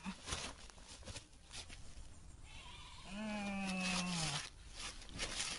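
A farm animal lets out one long call a little over three seconds in, holding one pitch and sagging slightly at the end. Scattered light knocks and clicks sound around it.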